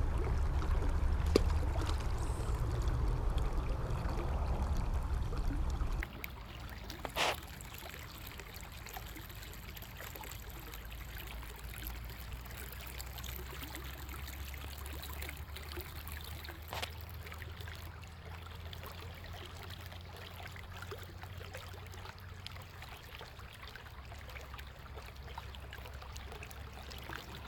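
Small creek's water trickling steadily. A low rumble over it for the first six seconds cuts off suddenly, and there is a single click about seven seconds in.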